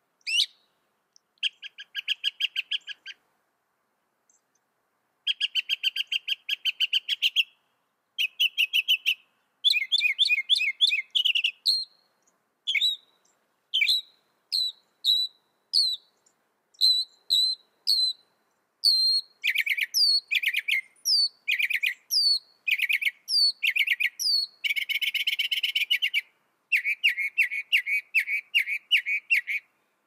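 Northern mockingbird singing: a string of varied phrases, each made of one note type repeated several times before it switches to the next. The phrases are rapid buzzy or chattering series and runs of down-slurred whistles about once a second, with short pauses between phrases.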